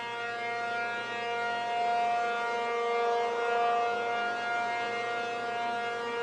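P-50 tornado siren sounding a steady tone at one pitch, its loudness swelling and easing a little.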